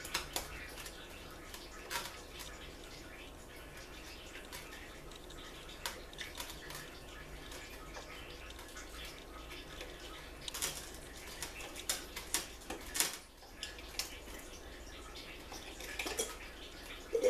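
Scattered metal clicks and clinks of tools and parts being handled on a Ford C6 automatic transmission during teardown, with a cluster of them a little past halfway, over a steady low hum.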